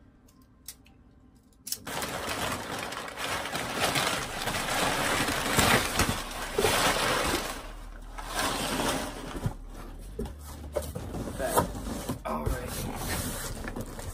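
Quiet for about the first two seconds, then packaging being rustled and crinkled as a shipping box is opened and unpacked, with scattered small clicks and knocks.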